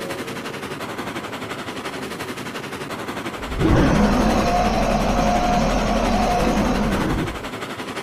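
Made-up monster-train creature sound effect: a fast, even pulsing noise, then about three and a half seconds in a louder deep rumbling blast with bending tones over a held tone, cutting off after about four seconds.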